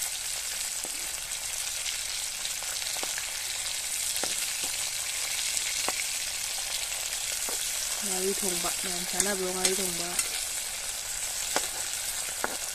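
Food and sliced shallots sizzling in hot oil in a black iron wok, a steady frying hiss with scattered clicks and scrapes as a perforated metal skimmer stirs them against the pan.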